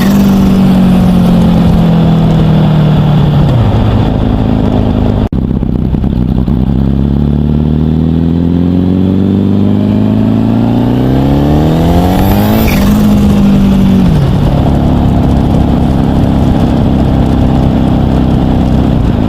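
Car engine with a Garrett T25 turbocharger, pulling at light throttle. Its pitch climbs twice, each time topped by a rising turbo whistle, then drops sharply as the throttle is lifted, when the turbo's flutter is heard.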